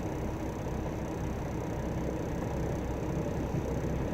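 Semi tractor's diesel engine running steadily at low revs, in reverse gear with the trailer brakes set, to slide the trailer tandems until they catch a pin.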